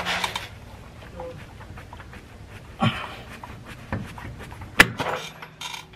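Scattered scrapes, rustles and clinks of gloved hands and a hand tool working on a car's front suspension around the brake drum and ball joint. The sharpest, loudest metallic click comes a little before the end.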